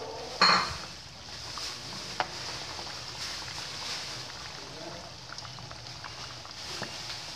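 Lemper deep-frying in hot oil in an aluminium wok: a steady sizzle with small pops and crackles. A spatula clatters and scrapes against the wok about half a second in, with a sharp tap at about two seconds.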